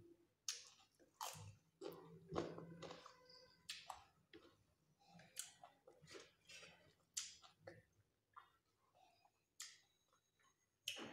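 Close-miked chewing and crunching as people eat with their fingers, including crisp bites of raw cucumber slices. It comes as irregular sharp crunches, the strongest in the first few seconds.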